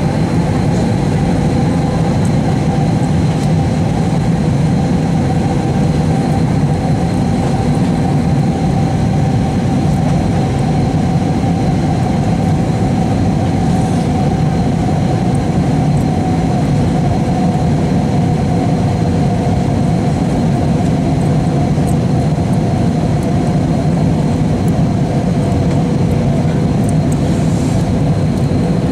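Airbus A320 cabin noise on approach: the jet engines and the rush of air make a loud, steady rumble, with a faint steady whine running through it.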